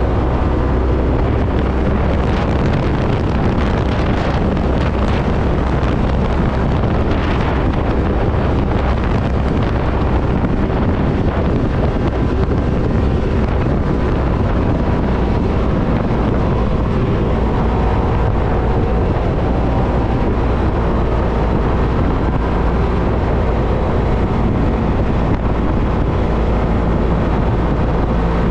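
Off-road vehicle engine running steadily while driving, with heavy wind buffeting on the microphone. A few short knocks sound in the first third.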